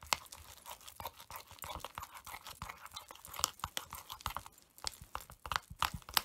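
Spoon stirring a thick paste of cornstarch, shampoo and body lotion in a ceramic bowl: irregular clicks and scrapes of the spoon against the bowl, several to a second, with the wet paste being worked.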